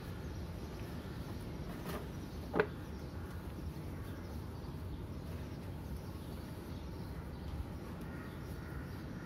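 Low, steady background hum with one short, sharp chirp about two and a half seconds in.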